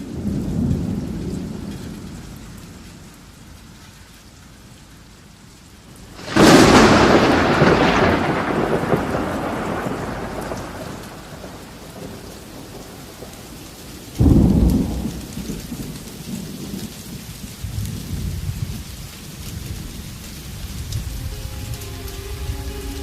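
Thunderstorm: steady rain with rolling thunder, a loud sudden clap about six seconds in that rumbles away over several seconds, and a second sharp clap about fourteen seconds in followed by low rumbling.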